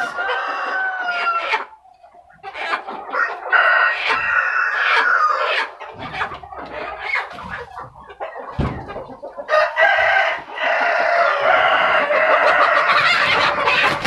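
KUB chickens calling loudly: long drawn-out crows and clucking in several stretches, with a brief lull about two seconds in. A single dull thump about eight and a half seconds in.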